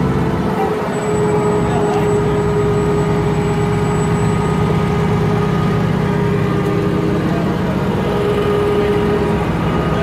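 Engine of a large rigging forklift running steadily, with a steady whine above the engine note.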